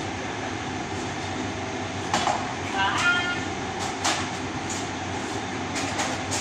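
A steady mechanical rumble of running machinery, with a few sharp knocks of objects being handled about two, four and six seconds in.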